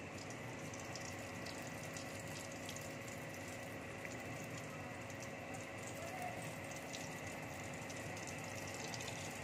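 Besan-battered bread pakoras deep-frying in hot oil in an iron kadai: a steady sizzle with small crackles.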